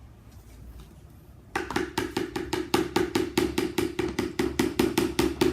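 Fast, even clacking of a spoon beating against a mixing bowl of slime, about seven knocks a second, starting about a second and a half in and keeping on steadily.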